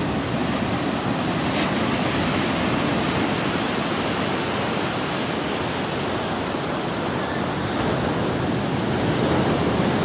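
Ocean surf breaking and washing up the beach: a steady rushing wash that swells slightly near the end.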